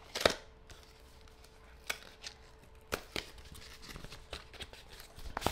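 A cardboard phone box being handled and opened: a sharp tap a moment in, then scattered light taps and a short rustle of the packaging near the end.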